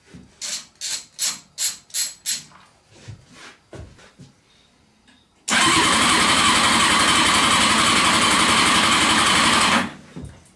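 Honda CBR600 inline-four cranked on its starter motor with a compression gauge in a spark plug hole: a loud, steady whirring rush for about four seconds that stops abruptly. The cylinder reads almost 150 on the gauge, a sign of good compression. Before the cranking there is a quick run of about six clicks, then fainter knocks.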